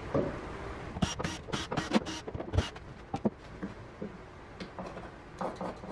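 Galvanized sheet-metal duct fitting handled against a wooden box: a quick run of sharp clicks and scrapes about a second in, then scattered light knocks and taps.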